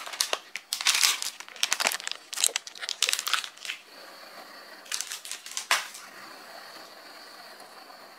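Plastic Samyang Buldak cheese noodle packet crinkling as it is handled, in several crackly bursts over the first four seconds and again briefly about five seconds in.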